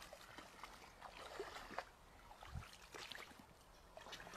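Faint sloshing and splashing of boots wading through a shallow pond, with scattered soft clicks and rustles from leaf litter and twigs underfoot.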